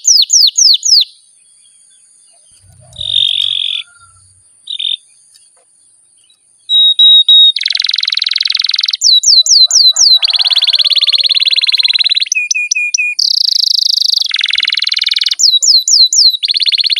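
Domestic canary singing. It opens with a quick run of falling whistled notes and pauses for over a second. It then goes into long buzzy rolls broken by short runs of falling notes.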